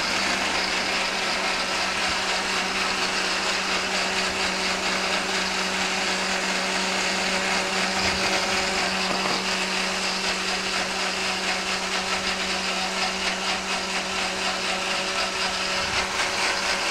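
Countertop blender running steadily at full speed, blending dried unsweetened coconut with a little water into coconut milk: an even whir over a low steady hum.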